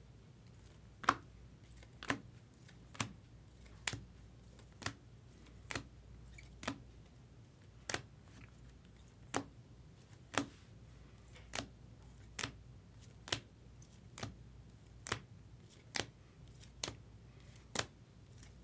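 Chromium baseball trading cards being flipped one by one through a hand-held stack, with a click about once a second as each card is moved from the front to the back.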